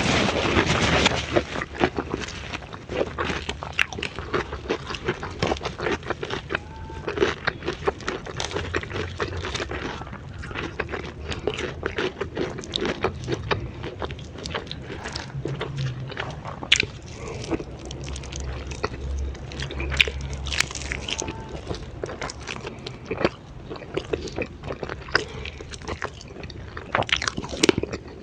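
Close-up eating sounds: a person chewing and biting into raw vegetables and grilled chicken, with many short, sharp crunches throughout.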